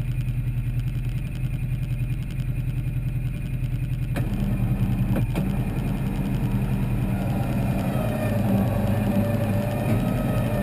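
Polaris side-by-side engine idling steadily close by, with two faint clicks about four and five seconds in and a higher, wavering whine joining over the last few seconds.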